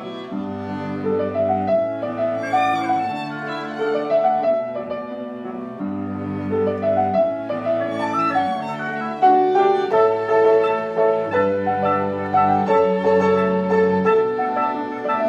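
Live chamber ensemble playing a classical piece, with violin, cello and piano: held low notes change about every second and a half under a moving melody.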